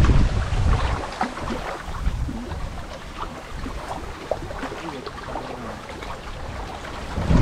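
Strong wind buffeting the microphone in gusts: heavy rumble for about the first second, easing to a lighter rush with scattered small ticks, then gusting hard again at the very end.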